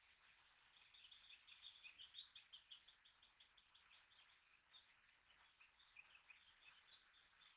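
Faint bird song: a quick run of evenly repeated high notes beginning about a second in, followed by scattered chirps.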